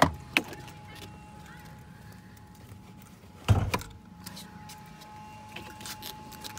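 Clicks and knocks from a 2018 Ford Fusion's door and hood release being worked, with a heavier clunk about three and a half seconds in, over a faint steady tone.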